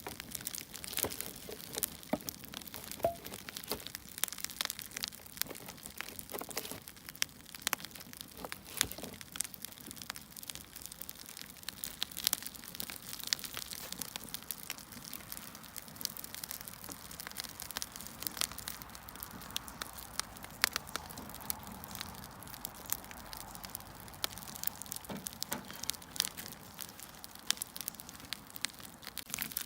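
Burning firewood crackling: irregular sharp pops and snaps over a soft, steady hiss.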